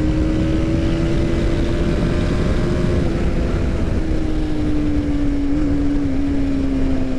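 TVS Apache RR 310's single-cylinder engine running at a steady highway cruise, its note sinking slowly lower, over heavy wind rush.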